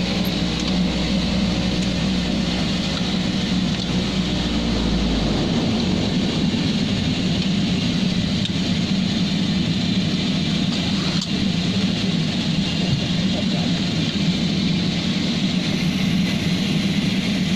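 Twin turboprop engines of a Nepal Airlines Y-12 heard from inside the cockpit, running with a steady drone. A deep low rumble drops away about five seconds in while the drone carries on.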